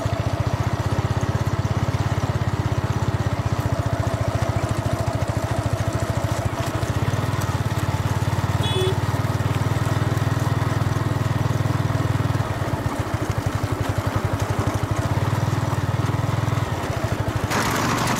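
Motorcycle engine running steadily under way, with a dense, even train of firing pulses. A brief tone comes about halfway through. Near the end a louder rush of wind and road noise comes in.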